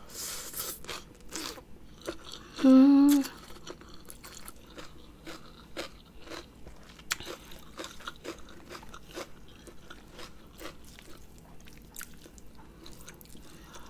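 Close-up eating sounds: chewing and biting into a spicy Thai rice-noodle salad, with many small wet clicks of the mouth. A short, loud hummed 'mm' comes about three seconds in.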